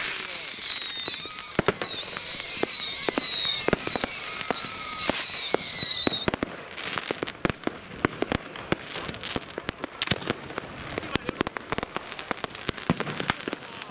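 Mass New Year's fireworks: for the first six seconds many falling whistles overlap amid scattered bangs, then from about six seconds in a dense, irregular run of sharp firecracker bangs and cracks.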